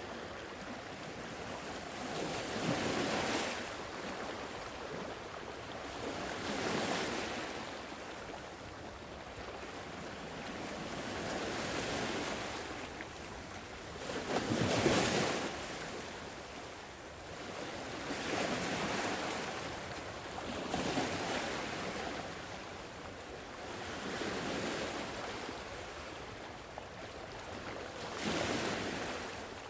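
Sea waves washing onto a shore, each one swelling and ebbing every three to four seconds, with the loudest break about halfway through.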